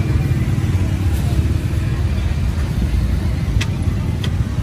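Street traffic: a steady low rumble of vehicles going by, with two short sharp clicks near the end.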